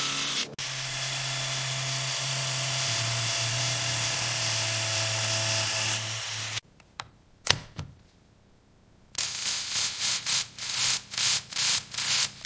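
Small electric motor of a miniature power tool running steadily for about six seconds, then cutting off abruptly. A single sharp click follows, then, near the end, a quick series of about ten short rasping strokes.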